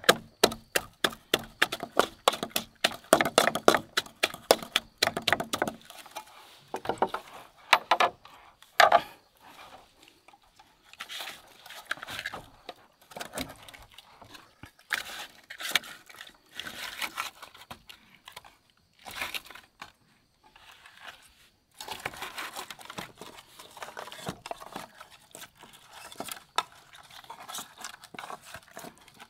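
Wooden pestle pounding turmeric and spice roots in a metal pot, in quick, even strokes that stop about six seconds in. After that come irregular wet squelching and scraping noises as fish pieces are pressed and rubbed in the spice paste inside the pot.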